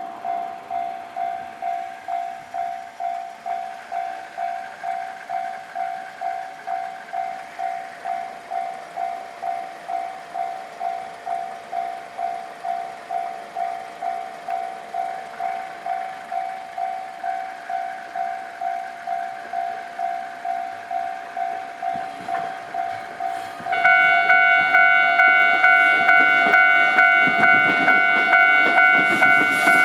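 Japanese railway level-crossing alarm bell on the JR West Wakayama Line, ringing steadily at about two strikes a second. About 24 s in, a louder, higher-pitched chime joins it at the same pace. Near the end the rumble of an approaching train rises under the bells.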